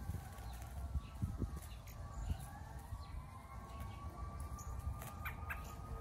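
A distant siren wails, its pitch slowly falling and then rising again, over a low steady rumble. Two short, sharp bird calls come about five seconds in.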